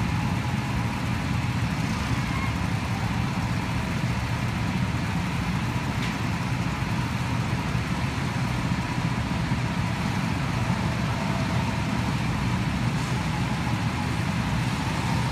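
Go-kart engines running steadily as karts circle the track, a constant low hum with a faint whine above it.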